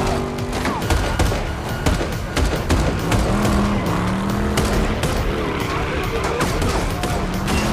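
Action-film sound mix: a muscle car's engine revving and its tyres skidding on wet pavement, with a rapid series of sharp gunshots and impacts, over a music score.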